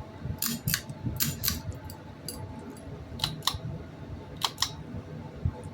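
Old ceiling fan running with a steady motor hum. Sharp clicks come over it about nine times, mostly in close pairs at irregular intervals.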